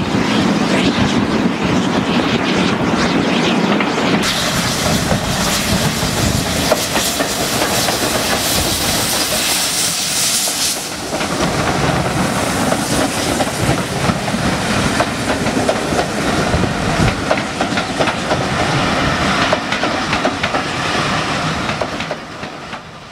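Steam-hauled passenger train passing close by, the coach wheels clicking over the rail joints under a steady hiss of heavy rain and wind. The sound fades out near the end.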